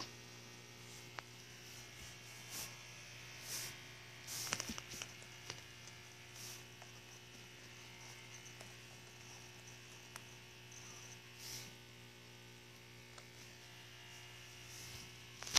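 Faint steady electrical hum, with a few soft, brief rustles and taps scattered through it.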